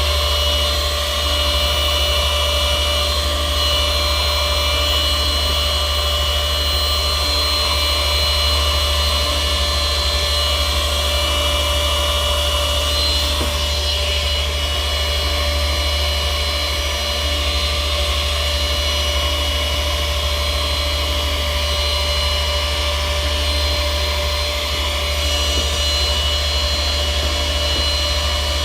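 Small handheld vacuum cleaner running steadily, a constant motor whine with a low hum underneath.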